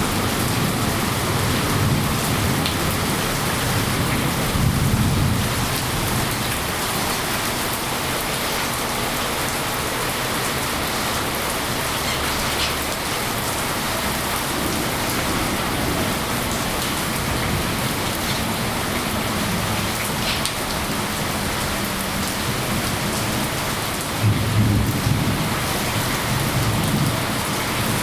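Steady rain with a constant hiss, with low rumbles swelling now and then, the strongest about four seconds in and near the end.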